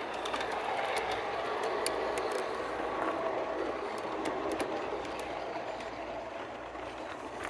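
G scale model train running along its track: a steady rolling and motor sound with scattered sharp clicks, a little louder in the first half and easing slightly near the end.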